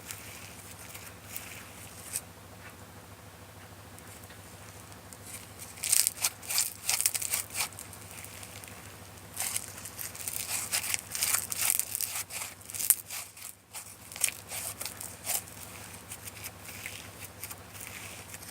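Slime being squished and handled, making bursts of rapid crackling and popping clicks: a short burst about a third of the way in and a longer one through the middle.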